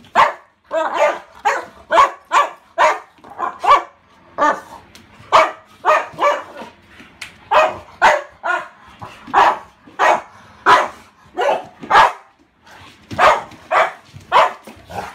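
Saint Bernard barking over and over in short, quick barks, about two a second, with a few brief pauses. These are play barks, given while another dog play-fights with her.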